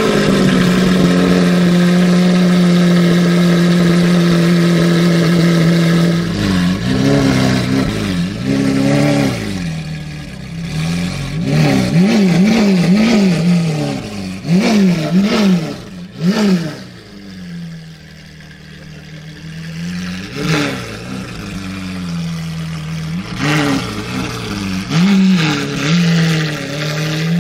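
Lamborghini Aventador S's V12 through a straight-piped Capristo exhaust. It is held at a steady high rev for about six seconds, then blipped up and down over and over, with a few sharp pops. It settles lower for a few seconds, then revs again as the car pulls away.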